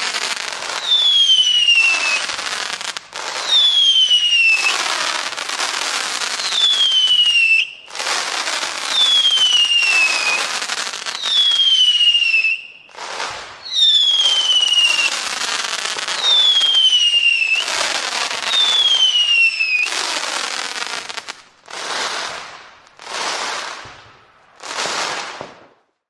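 Whistling fireworks going off one after another, about eight in a row, each a falling whistle over a crackling hiss. Near the end come several shorter crackling bursts with no whistle.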